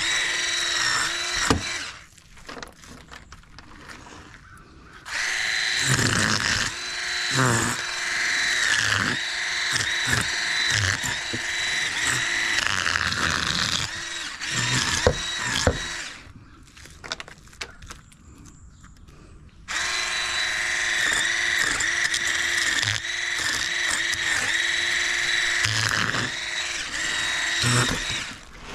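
Handheld electric fish scaler running as it scrapes the scales off a large sheepshead: a steady motor whine with a rough scraping over it. It drops away twice, for a few seconds after about two seconds in and again for about three seconds past the middle, then starts up again.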